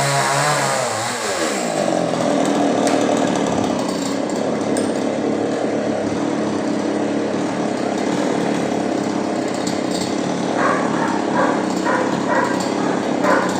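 Chainsaw engine at high revs that drops in speed over the first second or so, then keeps running steadily at a lower pitch. From about ten seconds in, a series of short knocks sounds over it.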